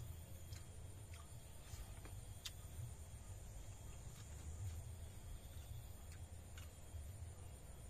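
Soft clicks and smacks of a man eating by hand off a banana leaf, every half second to a second, over a faint steady high hum of insects and a low rumble.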